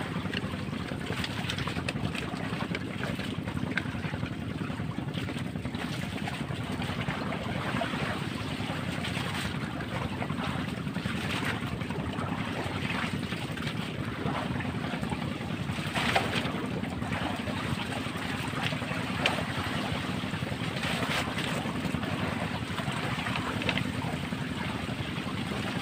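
Wind on the microphone and sea water lapping around a bamboo fishing platform, over a steady low hum, with a couple of sharp clicks past the middle.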